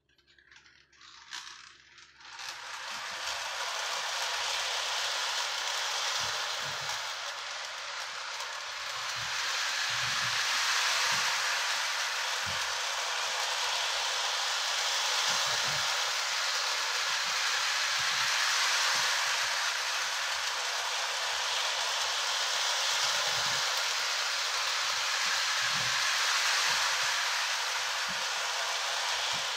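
Lionel Scout O-gauge steam freight set starting off about two seconds in and running around its Fastrack oval, a steady rattle of wheels on the plastic track with faint irregular knocks.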